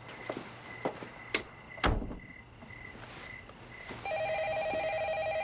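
A few soft knocks and a loud thump just under two seconds in, then a telephone rings once with a steady electronic trill from about four seconds in.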